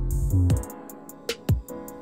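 Background music with a steady electronic beat: a bass drum about once a second with hi-hat clicks between, over a heavy bass line that drops out about half a second in.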